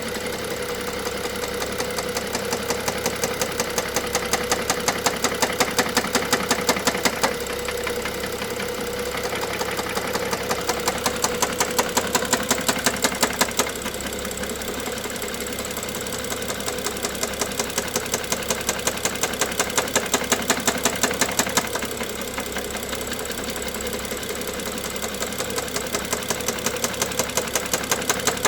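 BMW N55 3.0-litre turbocharged straight-six running with a regular sharp knock, about four or five strikes a second, over a steady engine hum. The knock grows louder and fades back several times. This is the engine knock the owner is chasing.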